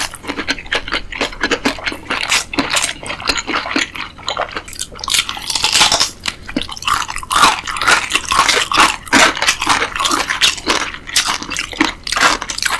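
Close-miked chewing and crunching of food, a dense run of quick crisp clicks and wet smacks.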